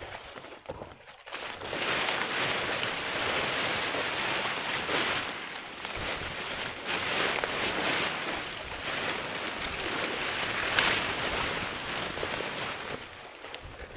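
Fern fronds and leafy undergrowth rustling and swishing as a person pushes through it on foot. The rustle builds about two seconds in and carries on with uneven surges.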